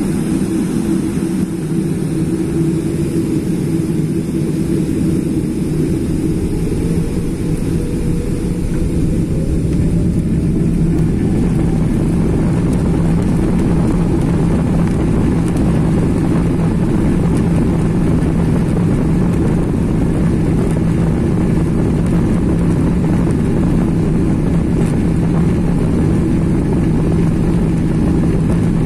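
Boeing 777-300ER's GE90 jet engines spooling up to takeoff thrust, heard from inside the cabin: a rising whine from about six seconds in, then a steady loud rush of engine and runway rolling noise as the jet accelerates down the runway.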